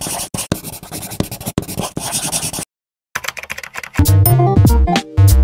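Pen scratching on paper in quick strokes for about two and a half seconds, a writing sound effect. After a brief gap, electronic music comes in about three seconds in, with a heavy bass beat from a second later.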